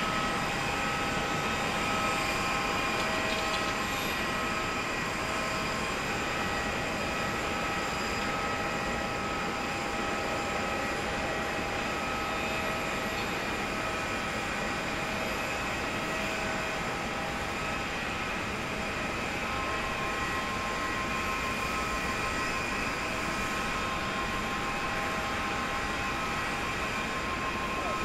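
Boeing 787-8's two GEnx turbofan engines at takeoff power during the climb-out: a steady jet rumble and rush, with several thin whining tones coming and going above it.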